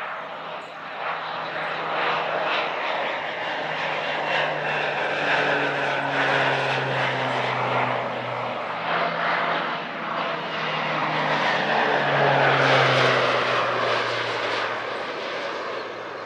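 Propeller airplane's engine droning as it goes by, growing louder and then easing off, its pitch falling as it passes.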